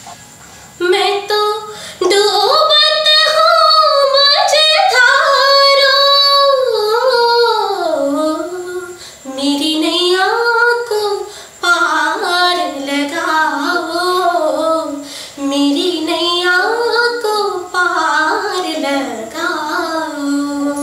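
A woman singing a semi-classical song, in long phrases whose pitch glides and bends, with short breaks for breath between them.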